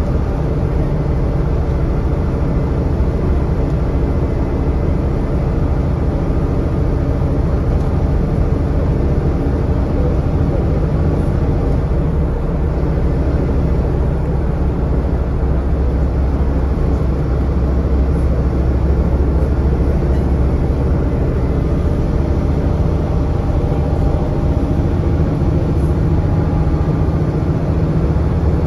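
Scania N230UD double-decker bus running, heard from inside the upper deck: a steady low diesel drone from its five-cylinder engine, with road and body rumble. The low drone swells about halfway through and eases again a few seconds later.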